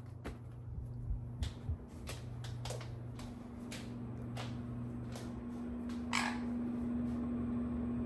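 Ceiling fan motor humming steadily, the hum growing a little stronger after a few seconds, with a dozen or so scattered sharp clicks and ticks.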